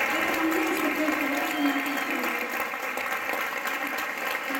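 Audience applauding in a concert hall, with voices calling out among the clapping.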